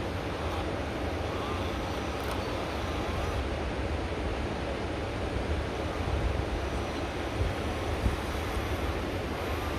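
Steady rushing wind noise buffeting the microphone, with a low, uneven rumble underneath.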